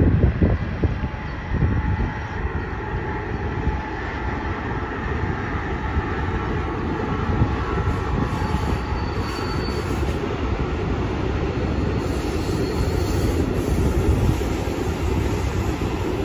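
Freight train of hopper wagons rolling past on the tracks, a steady rumble of wheels on rail. A faint high wheel squeal comes in twice in the middle.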